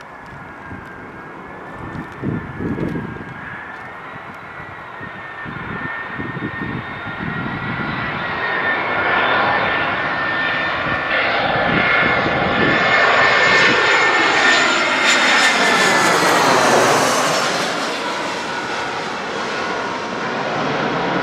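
Jet airliner's engines passing close by: a high whine and rushing noise that builds steadily and peaks about two-thirds of the way through with a sweeping, phasing sound as the aircraft goes past, then eases off.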